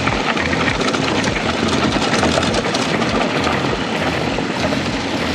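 Mountain bike ridden along a dirt trail: a steady rush of wind on the microphone and tyre rumble, with low thumps and rattles from the bike going over the ground.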